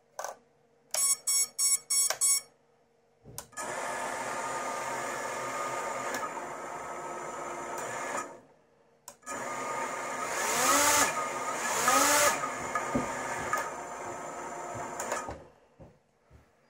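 FPV racing quadcopter on a bench: five quick beeps as it arms, then its brushless motors and propellers spin with a steady whine for about five seconds and stop. After a short pause they spin up again, with several quick throttle blips that rise and fall in pitch, before cutting off.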